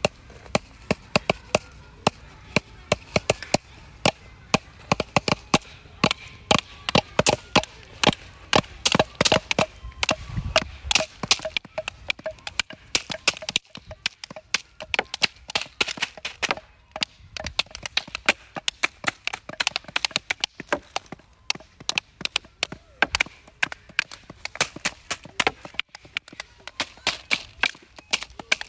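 Wooden sticks knocked and tapped together in a loose, irregular rhythm of sharp clacks, several at once, some hits ringing briefly. A dull thump about a third of the way in.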